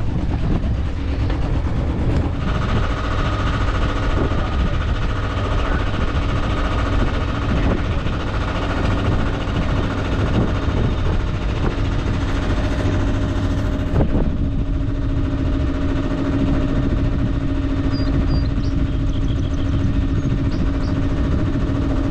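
Inboard engine of a 1980 Hunter 33 sailboat running steadily as the boat motors along under power, with a steady hum over a low rumble. A single knock sounds about fourteen seconds in.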